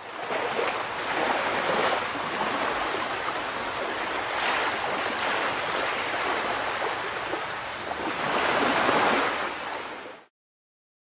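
Ocean waves washing, a steady rush that swells and eases several times, then cuts off abruptly near the end.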